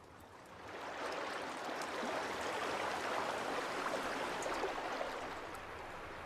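Rushing river water from spring snowmelt: a steady wash of churning water that swells over the first second and eases off toward the end.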